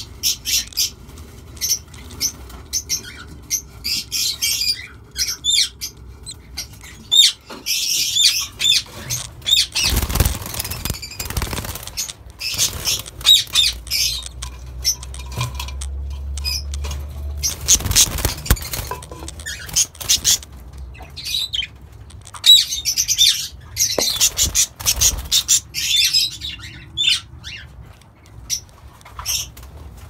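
Caged parakeets chirping and squawking in many short, high calls, with bursts of wing flapping about a third of the way in and again a little past the middle.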